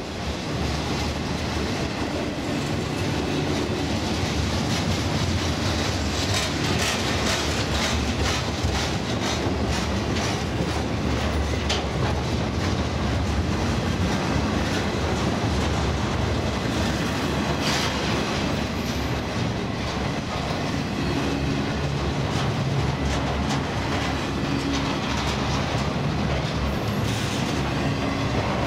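CSX intermodal freight train's cars rolling past, loaded with highway trailers on spine flatcars: a steady rumble with the wheels clicking over the rail joints.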